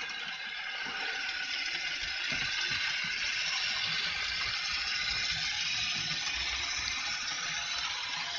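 Märklin HO model train running along the metal track close by, a steady, noisy mechanical whir and rattle of the motor and wheels that grows a little louder about a second in. The train makes a lot of noise, as the owner says.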